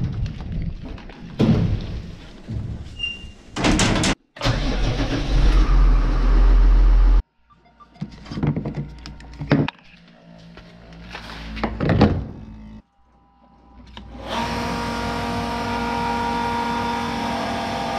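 Short cut-together clips of handling noises and knocks around a New Holland T6.165 tractor as its fuel cap is opened. A loud steady rumble runs from about four to seven seconds in. From about fourteen seconds a steady mechanical hum sounds while diesel is pumped through a nozzle into the tractor's tank.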